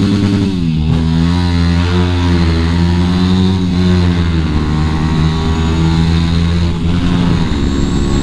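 Yamaha WR250X's single-cylinder four-stroke engine running under way through an FMF Q4 silencer and Mega Bomb header pipe. The engine note drops briefly and picks up again about a second in, then holds and slowly falls over the following seconds.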